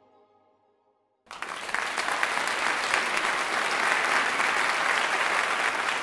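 The last notes of soft intro music die away. About a second in, an audience breaks into steady applause that carries on without letting up.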